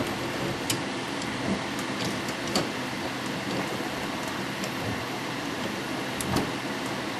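A few light clicks and knocks from hand work on a toilet's fill valve and supply hose fittings, over a steady background hiss.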